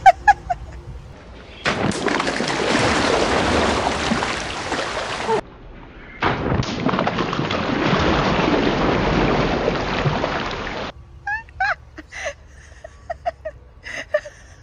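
Water splashing and gushing out of a giant water balloon as a child lands on it, heard in two long stretches that each cut off abruptly.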